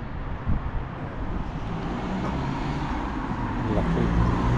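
Street traffic: a motor vehicle's engine running close by over a steady road hum, growing louder near the end.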